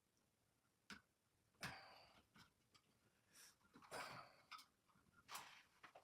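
Near silence broken by a few faint clicks and short rustles of electrical wires and connectors being handled and twisted together, one sharp click about a second in.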